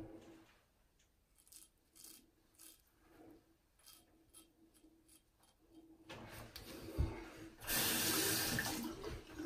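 Faint short scraping strokes of an axe blade shaving beard stubble, then near the end a tap running into a sink for about a second.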